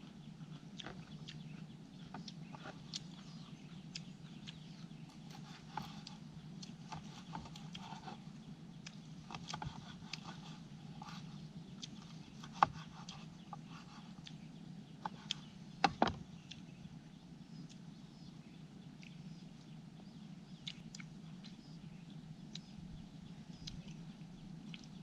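A person chewing and eating at close range: scattered small clicks and crunches, a few sharper ones about halfway through, over a steady low hum.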